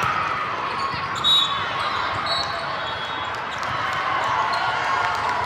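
Volleyball hall ambience: volleyballs being hit and bouncing, short high shoe squeaks on the sport-court floor, and a murmur of crowd voices echoing in a large hall, with one loud ball hit about a second in.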